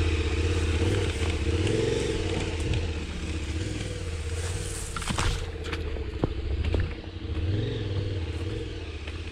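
Motorcycle engine running at low revs, rising and falling gently as the bike is ridden slowly through a shallow stream crossing, with a few sharp clacks about five to seven seconds in.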